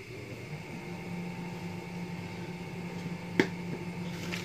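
Microwave oven running with a steady hum that sets in about half a second in; a single sharp click a little over three seconds in.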